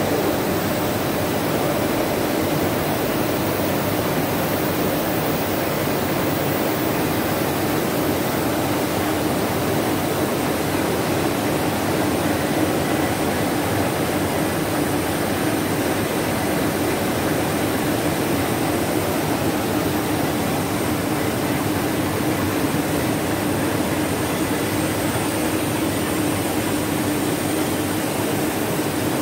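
1998 OMET Multifilm 520 FP flexo printing press running: a steady, even rush of air and machine hum with a faint high whine.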